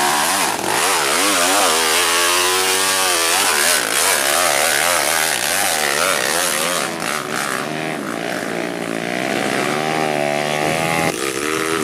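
Trail dirt bike engine revving hard, its pitch rising and falling again and again as the throttle is worked under load on a steep, muddy hill climb.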